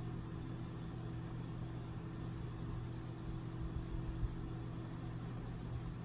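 Steady low hum of a running motor, with a faint low knock about four seconds in.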